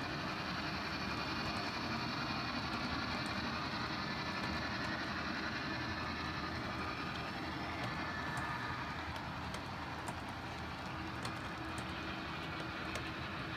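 Model freight train rolling along layout track: a steady running noise with faint, irregular light clicks of the wheels over the rails.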